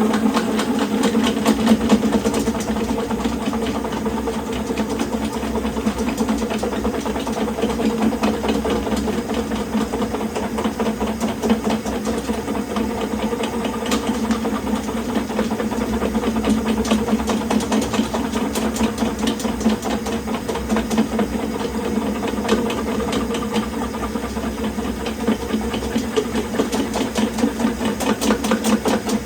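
Electric drain snake machine running steadily, its motor humming while the spinning cable rattles with rapid ticks as it is worked through a sewer cleanout line.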